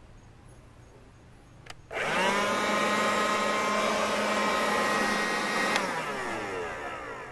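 Battery-powered Werktough cordless leaf blower: after a click about two seconds in, its motor and fan spin up quickly to a steady whine with air rushing, run for nearly four seconds, then cut off and wind down with a falling whine.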